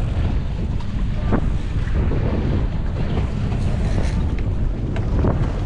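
Wind rumbling on the microphone over the steady wash of waves against a boat's hull at sea.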